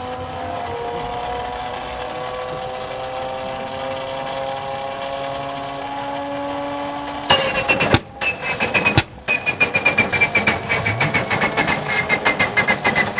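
The starter of a nine-cylinder ASh-62IR radial aero engine whines steadily as it spins up, rising slowly in pitch; about seven seconds in the engine catches on a cold, damp start with a loud rush of rapid, uneven firing, stumbling briefly twice before firing on, while the starter's whine falls away.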